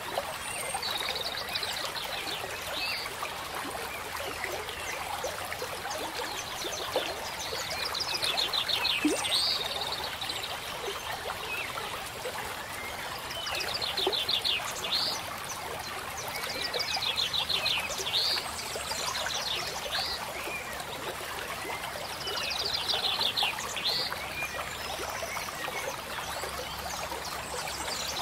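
Steady trickling stream water with a small bird singing over it: a rapid trill ending in a rising note, repeated about every five seconds, five times.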